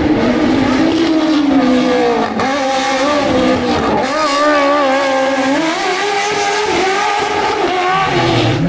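Rally car engine revving hard, its pitch climbing and dropping several times as it shifts and lifts off, with a brief burst of hiss about four seconds in.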